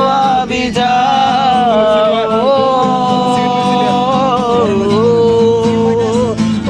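A man singing long, held notes with a slight waver, accompanied by a steadily strummed acoustic guitar.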